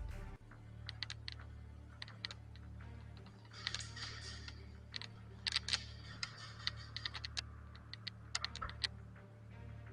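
Irregular sharp clicks and snaps, some in quick clusters, over a low steady hum.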